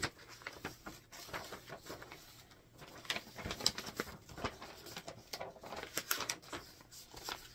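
Irregular rustling, crinkling and soft taps of fabric cuts and a paper quilt pattern being handled.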